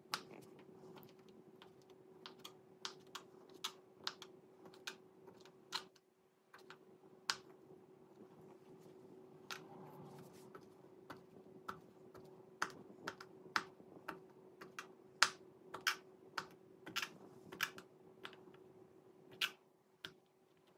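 Small kitchen knife slicing a turkey sausage into rounds on a plastic cutting board: a sharp click each time the blade meets the board, irregular, about two a second.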